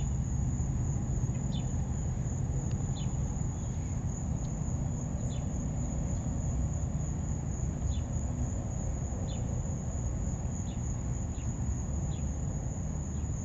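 An insect trilling: one steady, unbroken high-pitched tone. Brief high chirps come every second or so over a low steady rumble.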